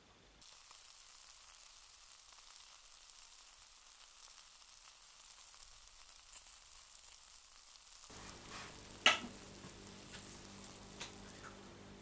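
Egg-dipped bread (French toast) sizzling in a frying pan, a steady hiss that starts abruptly about half a second in. Later a low steady hum joins, and a single sharp knock about nine seconds in is the loudest sound.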